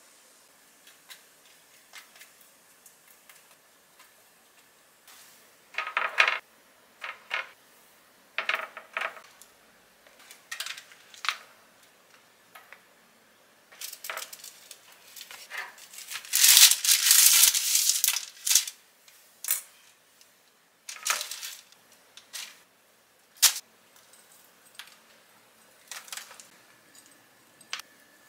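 Kitchen food-prep handling: bread slices and utensils clicking and clattering against a wire air-fryer basket, with crinkling baking paper and a spoon scattering shredded cheese. The loudest stretch is a few seconds of dense rustling just past the middle.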